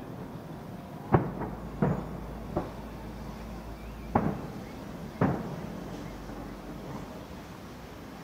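Aerial fireworks shells bursting: five separate sharp bangs in the first five seconds, spaced irregularly, the third fainter than the rest, each dying away in a short echo.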